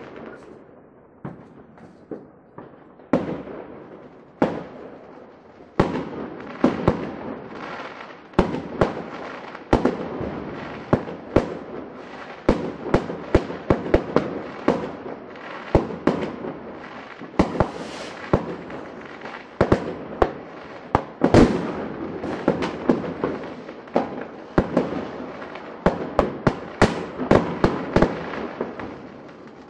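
Fireworks going off: a string of sharp bangs and pops over a crackling hiss. The bangs are scattered at first, then come thick and fast from about six seconds in, with short bursts of hiss in the middle.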